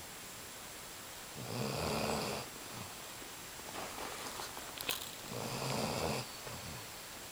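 Basset hound snoring in its sleep: two long, rattling snores about four seconds apart, with a softer breath between them. A brief click comes just before the second snore.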